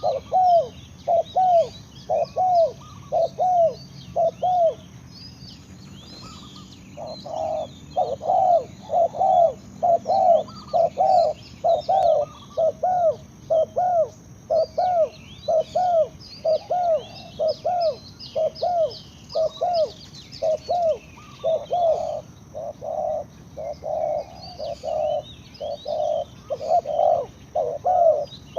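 Spotted doves cooing: a long run of short, arched coo notes at about two a second, with a brief pause about six seconds in. Small birds chirp faintly at a higher pitch behind them.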